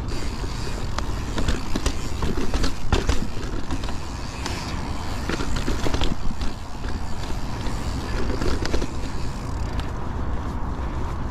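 2019 Santa Cruz 5010 alloy mountain bike rolling along a rough dirt trail: steady tyre noise with frequent clattering rattles and knocks from the bike.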